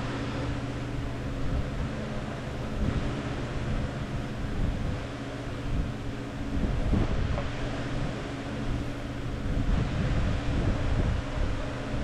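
Oscillating belt sander's motor running steadily with nothing against the belt: a constant hum under a broad rushing noise.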